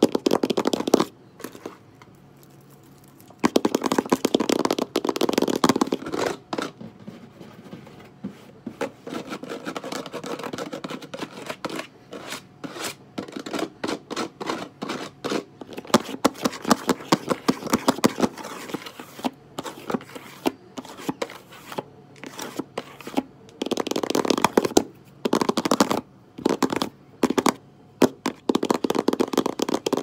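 Long fingernails tapping and scratching fast and hard on a windowsill right at the microphone: rapid clicks mixed with scraping, broken by a pause of about two seconds near the start and a few shorter gaps.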